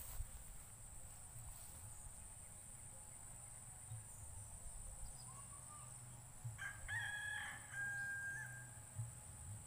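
A rooster crows once, starting about six and a half seconds in and lasting about two seconds, ending on a held note.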